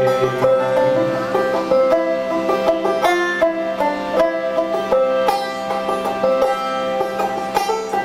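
Banjo picking a melody over a harmonium holding sustained chords, an instrumental passage with no singing.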